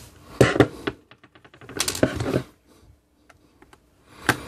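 Clicks and knocks of a small precision screwdriver and tiny screws being worked on the end of a metal power-bank case over a wooden bench, with a quick run of fine ticks a little over a second in and a sharper knock near the end.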